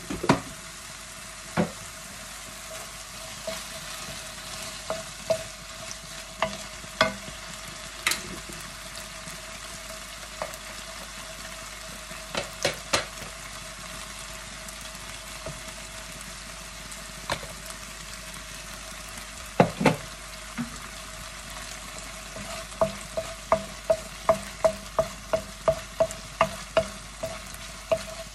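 Diced chicken sizzling in oil in a nonstick frying pan, with a wooden spoon knocking against the pan as it is stirred. Near the end comes a quick run of taps, about two or three a second.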